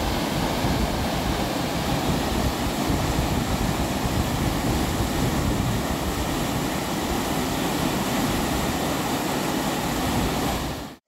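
Whitewater pouring over a concrete weir into an artificial whitewater course, a loud steady rush of water that stops abruptly near the end.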